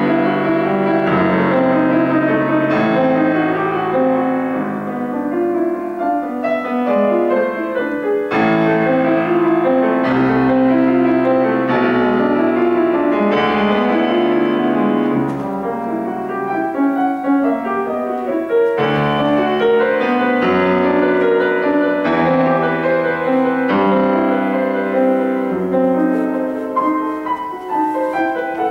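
Grand piano played solo, a classical piece of full chords and many quick notes, a little softer about halfway through and again near the end.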